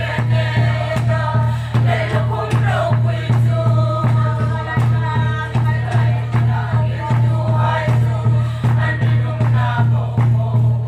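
A congregation singing a lengkhawm hymn together, carried by a steady beat on a large two-headed khuang drum at about two beats a second.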